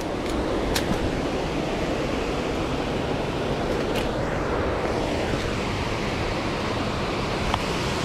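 Steady rushing noise of falling water from a nearby waterfall, with a couple of faint clicks.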